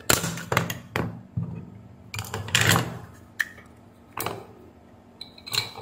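Plastic case of a mobile phone charger being pried apart with a screwdriver: a series of about eight sharp cracks and snaps, with a longer crackle in the middle, as the case seam gives way and the case comes apart in two halves.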